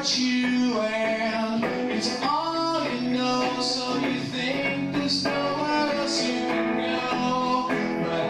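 A man singing into a microphone while strumming an electric guitar: a live song, the voice carrying a melody over the amplified guitar.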